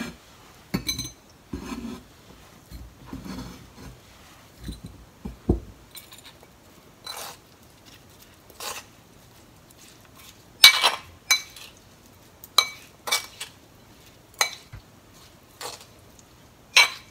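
A kitchen knife cutting boiled burdock root on a plastic cutting board with a few dull knocks. Then a metal spoon clinks and scrapes against a ceramic mortar as the burdock is tossed in sesame dressing, the clinks coming at irregular moments, the loudest about halfway through.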